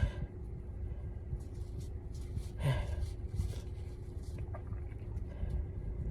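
A close-miked person sneezes once about two and a half seconds in, with short breaths and sniffs around it. A low rumble runs underneath.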